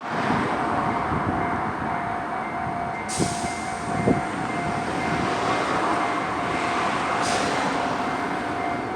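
Level-crossing warning bell ringing as a steady repeating tone over the running noise of a Hiroden 3950-series tram at the crossing. There are two knocks a little after three and four seconds in, and a hiss from about three to seven seconds in.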